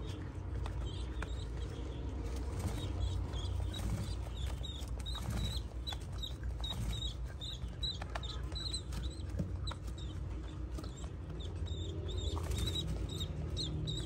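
Pigeon squab making high-pitched begging squeaks, about two a second, while its parent feeds it beak to beak, over a steady low rumble.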